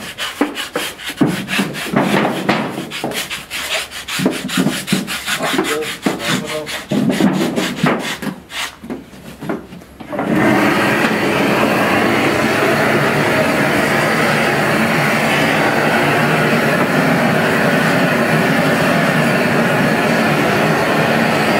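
Hair being scraped off a scalded pig carcass, rapid rasping strokes. About ten seconds in, a propane torch starts abruptly and runs with a steady loud hiss as it singes the carcass.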